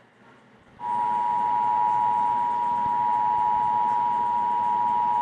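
Emergency Alert System attention signal: two steady tones sounding together. It starts abruptly just under a second in, after a faint hiss, and holds loud and unchanging.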